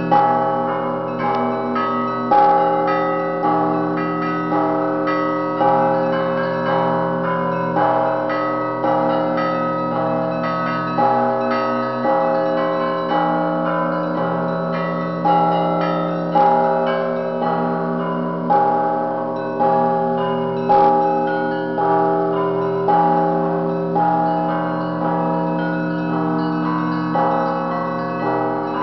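Russian Orthodox church bells ringing together. A deep bell is struck about every second and a half over quick, repeated strikes of smaller bells, and their tones hang on and overlap.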